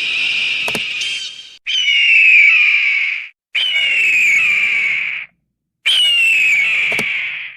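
Eagle screaming: a string of four long, raspy calls with short gaps between them, each starting high and sliding down before holding steady.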